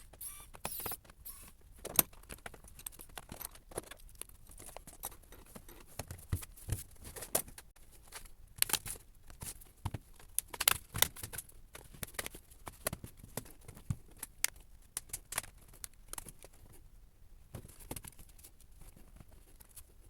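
Sped-up disassembly of a Lenovo ThinkPad P52s laptop: a quick, irregular run of small clicks and taps from tools, screws and plastic case parts, thinning out near the end.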